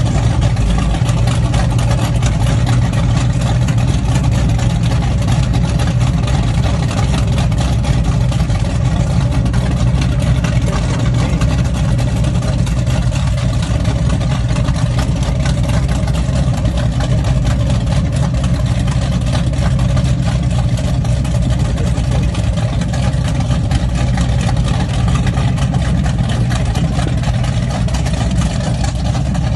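Twin naturally aspirated 598 cubic-inch GM short-deck big-block V8s in a Baja performance boat, running steadily with a deep, even note.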